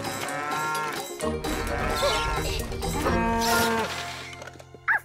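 A cartoon toy cow mooing, several drawn-out moos, with light music underneath.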